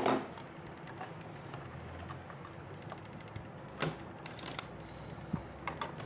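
Scattered small plastic clicks and taps from handling a mini sewing machine with its side cover off, the loudest a sharp click at the start and a few lighter ones about four seconds in and near the end.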